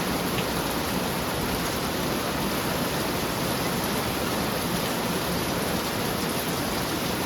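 Heavy rain pouring down in a steady, even hiss, with rain on a metal roof making a lot of noise.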